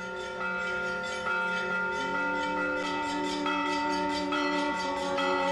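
Church bells ringing: bells of several pitches struck about twice a second in a changing pattern, each note ringing on under the next.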